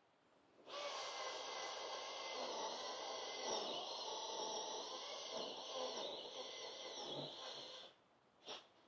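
Chainsaw running for about seven seconds, starting abruptly just under a second in and cutting off suddenly near the end, with a short click just after.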